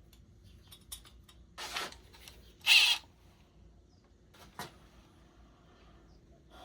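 Clicks and knocks of hands working a new drive belt onto a valve-grinding machine, with a brief high squeak of rubber belt against metal about three seconds in.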